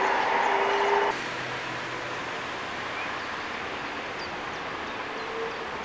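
A louder rail-vehicle sound with a steady humming tone cuts off abruptly about a second in. It gives way to a steady outdoor hiss with a few faint bird chirps.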